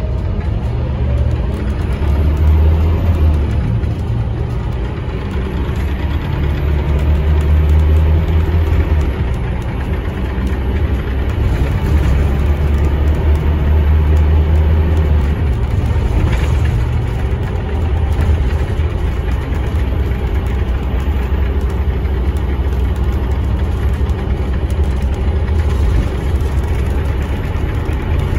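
Scania K230UB bus's rear-mounted five-cylinder diesel engine and ZF Ecomat automatic gearbox, heard from inside the cabin while driving. The engine note swells and eases several times as the bus accelerates and backs off.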